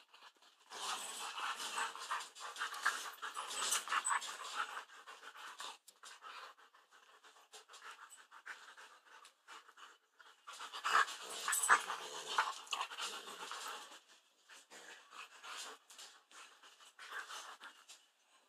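Large dog panting close to the microphone in bouts of quick, hissing breaths, with a quieter pause in the middle.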